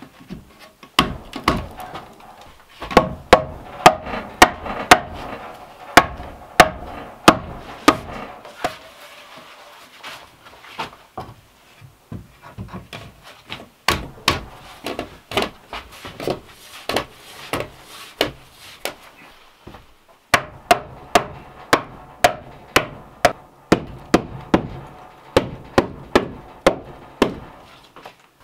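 Repeated hammering on wood, about two blows a second in several runs with short pauses: a split-log shelf being knocked home onto hardwood dowels set in a log wall.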